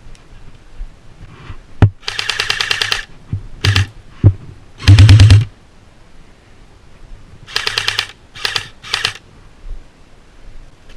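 Airsoft rifles firing short full-auto bursts, rapid evenly spaced clicks, about six bursts in all. The loudest comes about five seconds in, and a single sharp crack comes just before the first burst.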